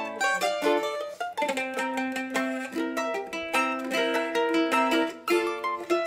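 Two Colombian bandolas playing a bambuco: quick plucked melody notes over a second part with longer held notes.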